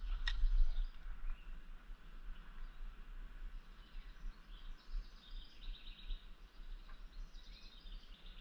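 Small birds chirping and singing intermittently over a steady low rumble, with one sharp click just after the start.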